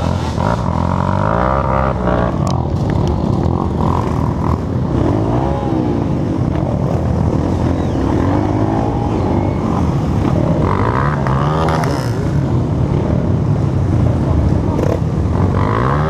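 Several dirt bike engines running and revving, the pitch rising and falling again and again as the bikes labour up a muddy climb.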